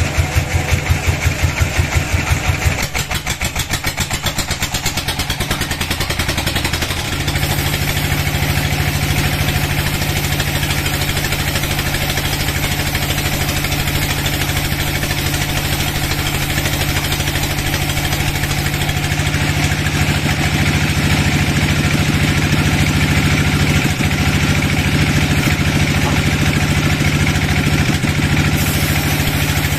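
Sawmill band saw running, its blade cutting lengthwise through a dry teak log. It throbs evenly, about three beats a second, for the first few seconds, then settles into a steady, louder drone from about seven seconds in.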